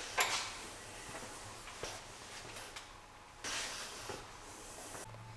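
Steel pipe clamps being hung into spring clips on a wall rack: a sharp metal clack about a quarter second in, a few lighter knocks, and a brief scraping rush about three and a half seconds in.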